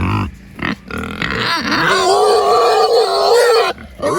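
Pigs grunting twice, then a long, loud squeal lasting about two and a half seconds, with another squeal starting near the end.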